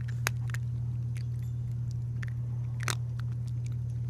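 A cat crunching dry kibble: irregular sharp crunches, with a louder one near the start and a longer crackling crunch about three seconds in, over a steady low hum.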